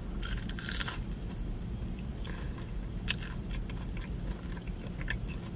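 Crunchy bite into a breaded Korean fried cheese corn dog lasting about a second, followed by chewing with scattered small crunches of the fried crust.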